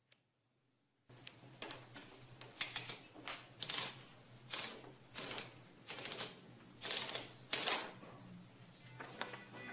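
Old manual typewriter being handled: a run of irregular clicks and short ratcheting rasps as the typed sheet is wound and drawn out of the platen, with paper rustling.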